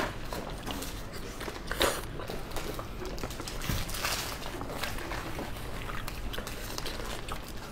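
Close-miked chewing of a soft braised sausage: wet mouth sounds with scattered smacks and clicks, a louder smack about two seconds in.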